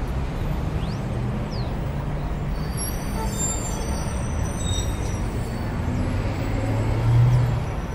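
Road traffic rumbling steadily. A vehicle engine grows louder about seven seconds in, then fades as it goes by.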